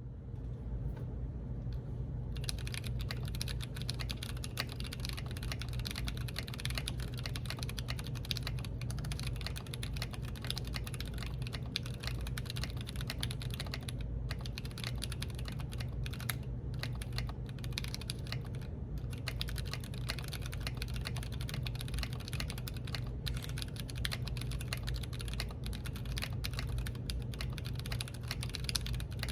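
Typing on a TKC Portico mechanical keyboard with stock Kiwi tactile switches and Infinikey Portico keycaps. A fast, continuous stream of keystroke clacks starts in earnest about two seconds in and stops briefly now and then, over a steady low hum.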